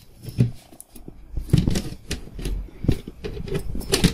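Snap-on lid of a plastic fermentation bucket being pried open by hand: an irregular run of sharp plastic clicks, cracks and knocks.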